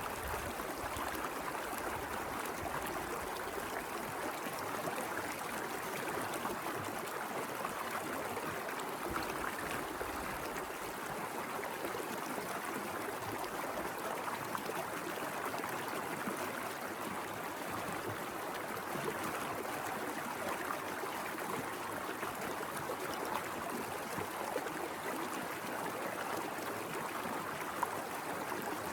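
Small mountain river flowing over rocks: a steady, even rush and babble of water.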